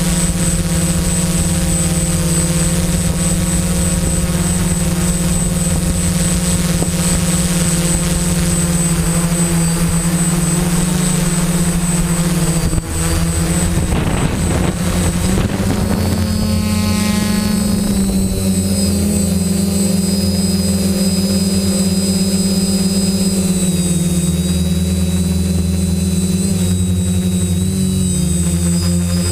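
Quadcopter's electric motors and propellers humming steadily, heard from the camera mounted on the craft. About halfway through, the tones shift in pitch as the motors change speed.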